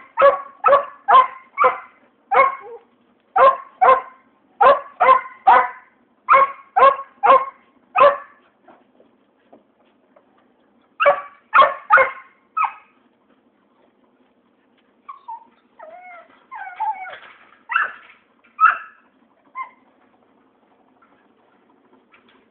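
A dog barking in quick, sharp yips, about two a second for the first eight seconds, then another short run of barks a few seconds later. From about fifteen seconds in it whines and whimpers, the pitch sliding up and down.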